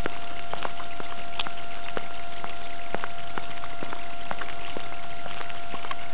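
Steady hiss with a constant high whine from a low-quality handheld camera recording, carried on a walk, with irregular sharp clicks and taps two or three a second.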